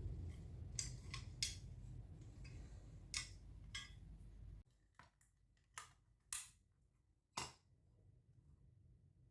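Small metal tools and parts being handled on a workbench: about seven sharp, separate clicks and clinks. A steady low hum underneath cuts off suddenly about halfway through.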